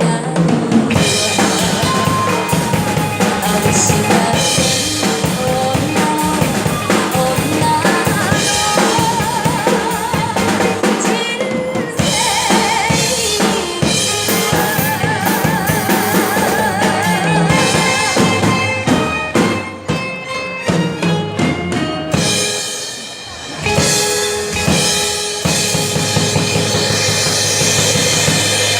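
Pop ballad music with a steady drum-kit beat and a melody line held with vibrato; the music thins out briefly about 23 seconds in, then resumes.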